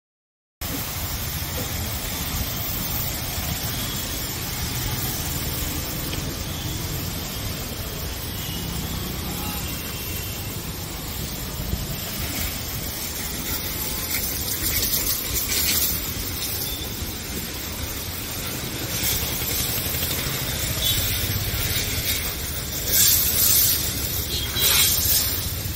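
Car wash foam-spraying equipment: a machine runs with a steady hum, and foam sprays with hissing bursts every few seconds, the loudest near the end. The sound cuts in just after the start.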